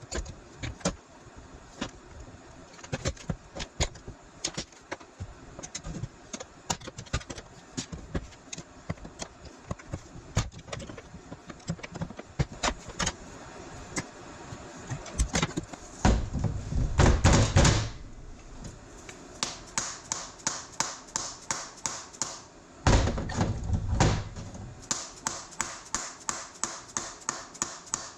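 Repeated sharp tapping and knocking on metal as a stubborn part of a Minneapolis Moline M602 power-steering control valve is worked loose. In the second half the taps come fast and even, about three a second, broken twice by a louder, noisier stretch of about two seconds.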